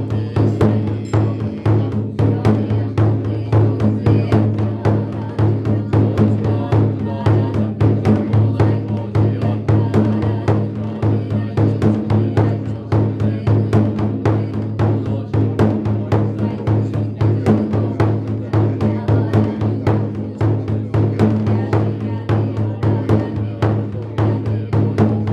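Large drum beaten in quick, steady strokes, as accompaniment to a goma fire ritual, over a constant low drone.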